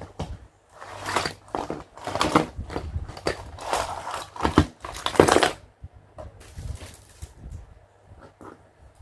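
Clear plastic toy packaging crinkling and crackling as it is handled and pulled off, loudest for a few seconds, then lighter taps and clicks of small plastic toy accessories being set down.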